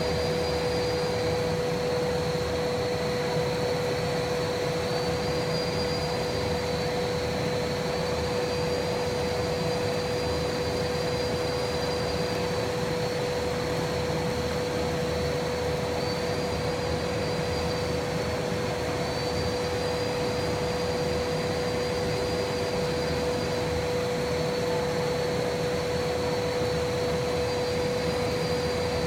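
Air bubble sheet machine running: a steady mechanical hum with a constant mid-pitched tone, and a faint high whine that lifts slightly in pitch now and then.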